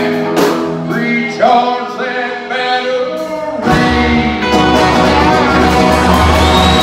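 Country rock music: singing over guitars, with the bass and drums coming in heavier a little over halfway through and the whole band playing fuller.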